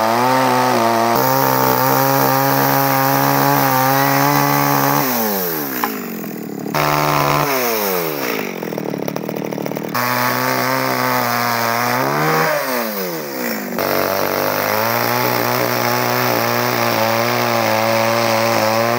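ECHO two-stroke chainsaw running at high revs as it cuts into a large block of wood. The engine note falls away sharply twice, around five seconds and twelve seconds in, before the saw is back at full speed.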